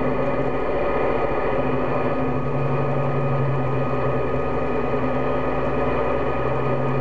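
CB radio receiver on 27.025 MHz with the channel opened by an incoming signal: steady static and hiss with several steady whistling tones, no voice coming through.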